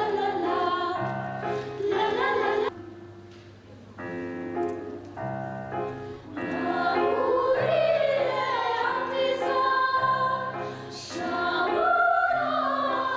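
Choral music: several voices singing slow, held notes. A few seconds in it drops to a softer passage, then swells again.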